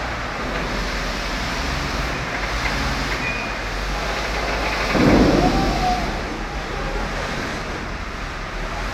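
Steady rumble of heavy machinery in a large shed, swelling into a louder surge about five seconds in.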